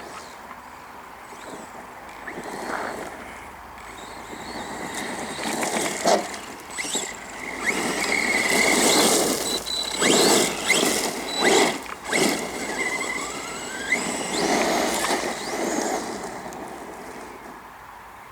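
Arrma Granite BLX 3S RC truck's brushless motor whining, its pitch rising and falling as the truck speeds up and slows, on a throttle limited to 50%. Several loud rushing bursts come in the middle, and it fades near the end.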